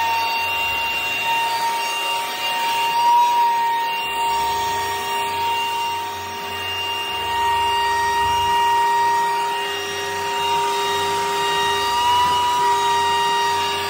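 Canister vacuum cleaner running with a steady high whine, its hose sucking soot and ash out of a wood-burning stove; twice the pitch lifts briefly.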